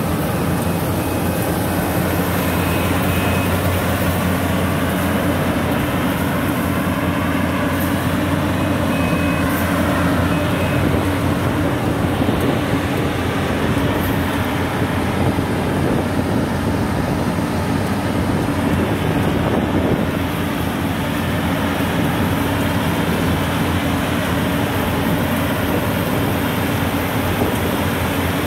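Yanmar YH850 rice combine harvester's diesel engine running steadily under load as the machine cuts and threshes rice, a continuous drone of engine and machinery.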